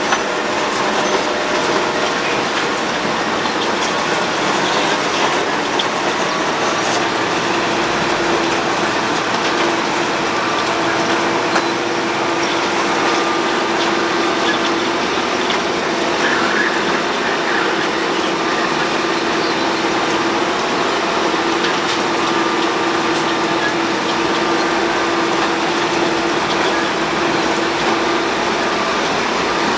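Road planer (cold milling machine) working, a steady loud mechanical noise with a held tone that comes up strongly about a third of the way through.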